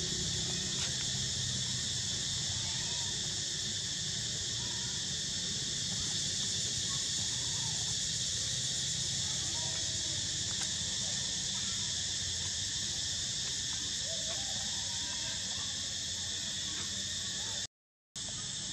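A steady, shrill chorus of insects drones throughout over a low rumble, with faint short squeaks now and then. The sound cuts out for a moment near the end.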